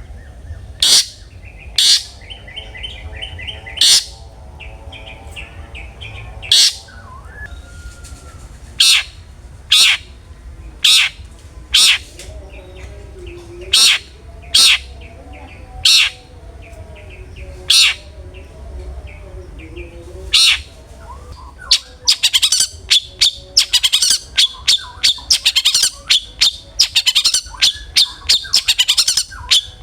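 Long-tailed shrike (cendet) singing: loud, harsh single notes about once a second with quieter warbling between, breaking into a rapid chattering run about two-thirds of the way through.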